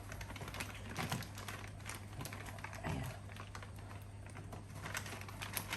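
Scattered light clicks and rustles from handling the delivery bag's stiff panels and fabric, over a steady low hum.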